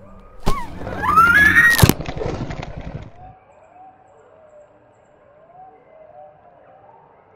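Cartoon sound effects: a sudden hit about half a second in, then a rising, wavering cry with a sharp crack, dying away after about three seconds. Faint repeated rising-and-falling wails follow.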